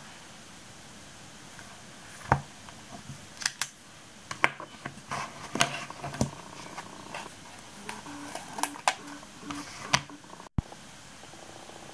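Paper notebook handled on a table: pages flicked, a pen set down and the elastic band pulled over to close it, heard as a string of irregular light taps, clicks and paper rustles, the sharpest a couple of seconds in.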